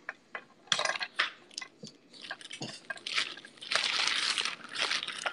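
Irregular crunchy, rustling handling noises with a few clinks: a scatter of sharp clicks at first, then denser, steadier rustling from about two seconds in.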